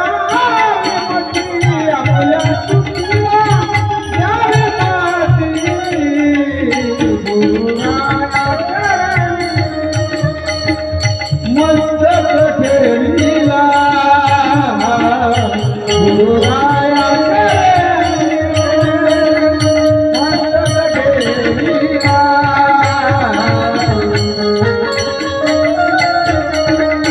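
Devotional kirtan singing: a solo voice holds long, gliding melismatic lines over tabla-style hand drums keeping a steady beat.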